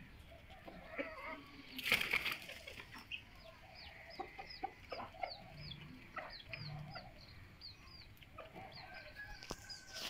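Chickens clucking quietly while feeding, with a run of short, high, falling chirps repeating from about four seconds in, and a brief noisy burst about two seconds in.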